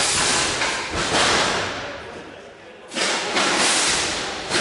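Combat robots clashing in the arena: sudden loud crashes about every two seconds, each dying away over a second or so.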